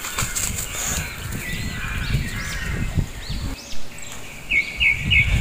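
Birds calling outdoors: scattered short chirps and arching calls, then a quick run of repeated notes near the end, over a low rumble on the microphone.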